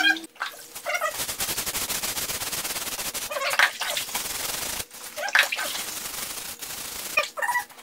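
Rust being scrubbed off a wet cast iron table saw extension wing from an old Craftsman saw, in a bath of water and baking soda: rapid scraping strokes that start about a second in, break off briefly near the middle, then stop shortly before the end.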